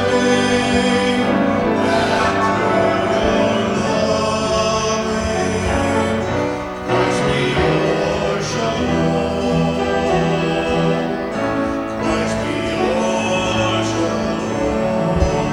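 Worship song: voices singing with instrumental accompaniment, played without a break.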